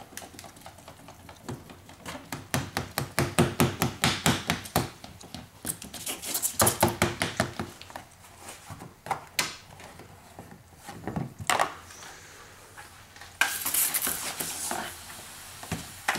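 Rapid scrubbing strokes on the wet car door glass as it is cleaned for window tint film. About three seconds before the end, a pump spray bottle starts hissing as water is sprayed.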